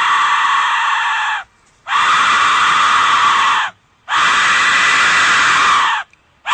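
Aztec death whistle blown in long blasts with its scream-like tone: one blast ending about a second and a half in, then two more of about two seconds each, with short breaks between, and a fourth starting at the very end.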